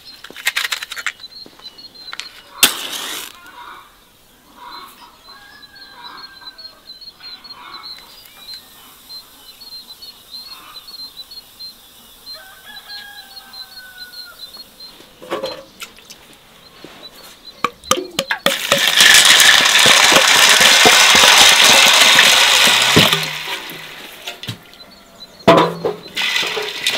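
Birds calling in the background, with a sharp strike of a match about three seconds in. Later a loud rush of water poured into an enamel basin for about four seconds, then hands splashing in the water to wash beans.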